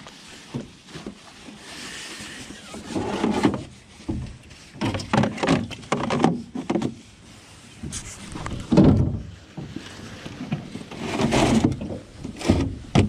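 Irregular knocks, bumps and clatter of gear being lifted and moved around in a john boat, with several heavier thumps.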